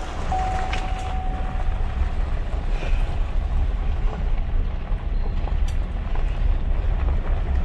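Steady low rumble of a moving vehicle, with a faint steady high tone during the first second or so.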